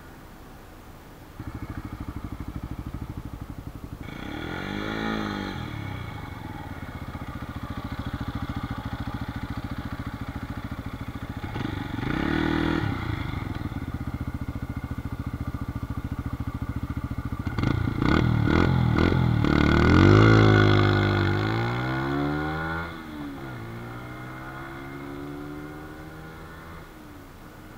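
Brixton BX 125 café racer's single-cylinder four-stroke engine through its stock exhaust: idling, with two brief blips of the throttle. The bike then pulls away, revs climbing through the gears, and fades as it leaves.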